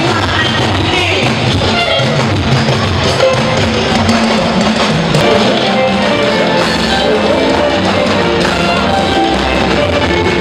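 Loud live band dance music with singing and drums, playing steadily.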